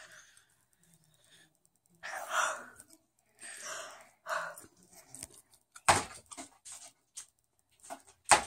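Baby's breathy panting huffs, a short excited burst every second or so, then two sharp clicks in the later part.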